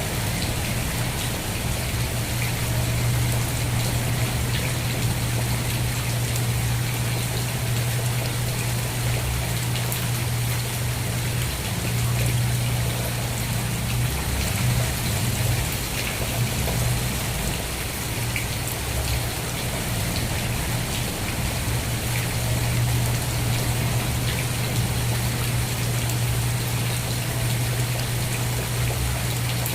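Steady rainfall, an even wash of rain with scattered drop ticks, over a steady low rumble that is the loudest part of the sound.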